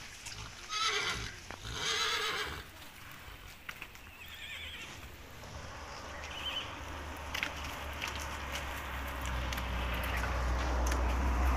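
Horses in a herd whinnying: two loud neighs in quick succession about a second in, then fainter, higher calls. Hooves knock now and then on the stony ground, and a low rumble grows near the end.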